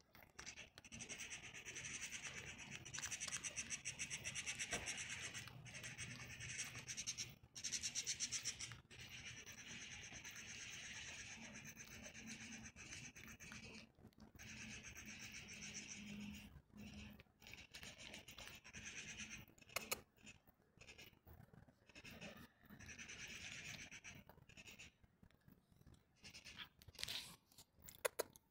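Domestic cat crunching and chewing dry kibble, in runs of rapid rasping crunches broken by short pauses, with a few sharp clicks.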